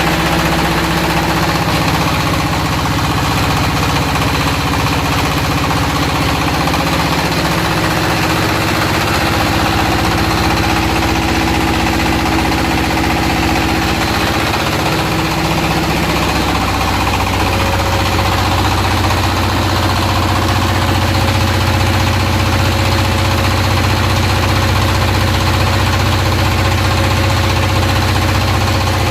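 Floating fish-pellet extruder machine running steadily with a loud mechanical drone; its low hum changes pitch about halfway through.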